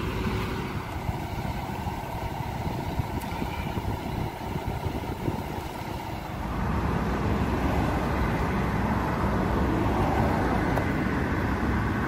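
Road traffic: motor vehicles running by in a steady rumble, which grows louder about halfway through.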